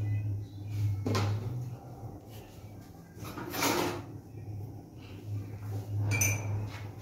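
Kitchen handling sounds: three short spells of knocking and clatter as dishes and utensils are moved about on a counter, over a steady low hum.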